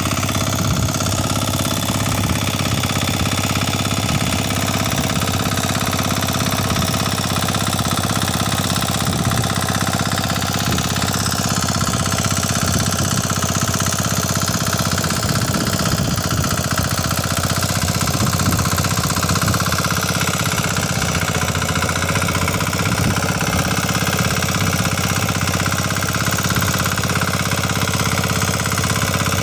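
A Kama 9 hp single-cylinder diesel engine on a power weeder runs steadily under load as the machine works through wet paddy soil. It makes an even diesel chugging at a constant level throughout.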